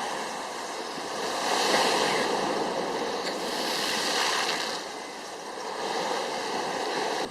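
Sea waves washing onto the shore, the surf swelling and easing in three surges.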